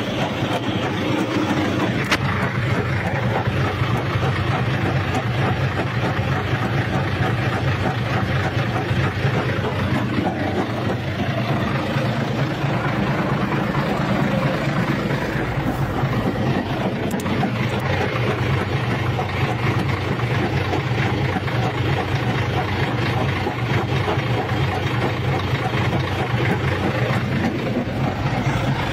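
Tractor running steadily with strange noise from its gearbox, which the owner puts down to failing main-shaft bearings between the clutch and the gearbox, their ball cages gone.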